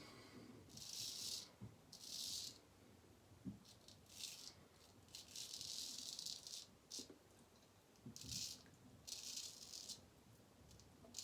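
Straight razor scraping through lathered whiskers on a face, in a series of short strokes with brief pauses between them.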